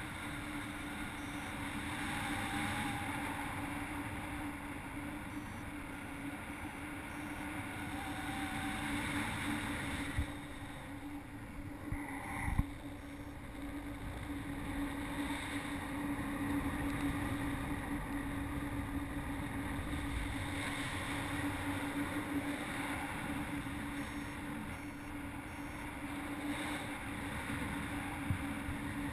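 Steady rush of airflow over a paraglider's camera in flight, with a steady low hum underneath and a couple of brief knocks about ten to twelve seconds in.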